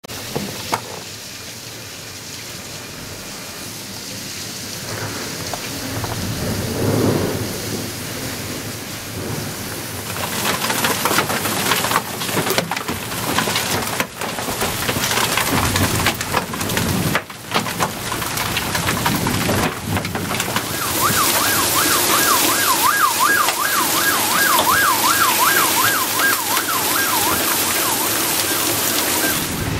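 Heavy rain and hail pouring down hard in a thunderstorm, with thunder rumbling. Over the last eight seconds or so a siren-like alarm warbles, rising and falling about twice a second, above the downpour.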